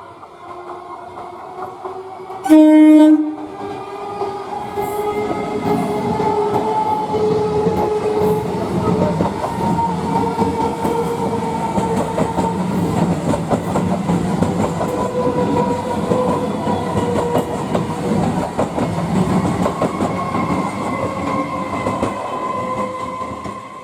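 An ICF Medha EMU electric train sounds one short horn blast, then passes close by for about twenty seconds: a loud rumble with clattering wheels and a steady hum, fading near the end.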